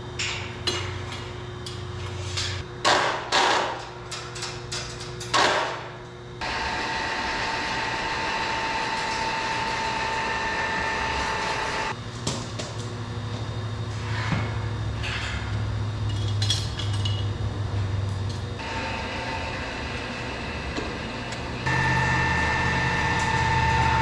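Steel clanks and knocks with a metallic ring as a heavy welded steel gate frame hanging on crane chains is handled. Then, across several edits, comes a steady machine hum with a whine, which grows louder near the end while a radial arm drill press drills through the frame.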